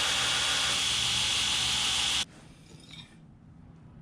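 Belt grinder grinding a hardened high-carbon steel blade: a loud, steady hiss of abrasive belt on steel that cuts off suddenly about two seconds in.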